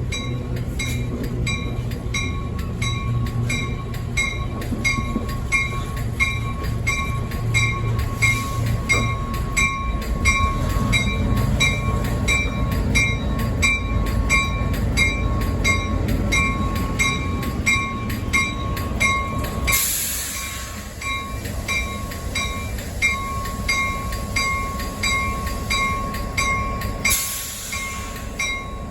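The Cape Cod Central brunch train rolls past, its locomotive's low rumble strongest in the first half and fading after that. Over it a bell rings steadily, about twice a second, most likely a grade-crossing bell. Two short bursts of hiss come about two thirds of the way in and again near the end.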